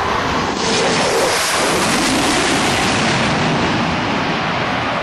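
Large crowd cheering and applauding as one dense roar that swells about half a second in and slowly fades.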